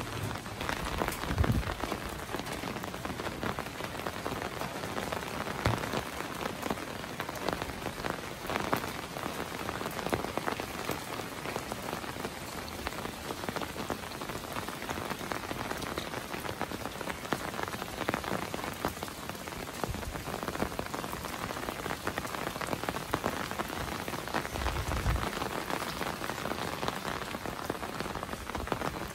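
Steady rain falling, with many separate drops striking close by. A couple of low bumps come through, one about a second in and another late on.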